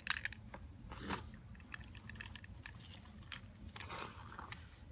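Handling noise from an opened plastic 50-round 9 mm drum magazine turned in the hands: scattered faint clicks and scrapes, with a couple of soft rustles about a second in and near the end.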